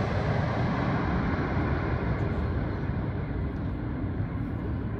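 Twin-engine jet airliner on final approach, just past overhead and flying away. Its engine roar fades steadily and loses its high hiss, leaving a low rumble.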